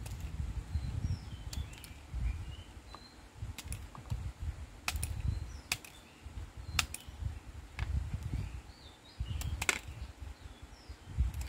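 Irregular sharp clicks and snaps, with a low handling rumble, as cured resin keycaps are trimmed of their flash with a blade. Small birds chirp faintly in the background.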